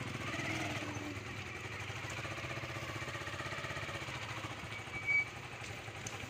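Motorcycle engine running steadily while riding through rain, under a steady hiss of rain and wet road. A short high tone sounds about five seconds in.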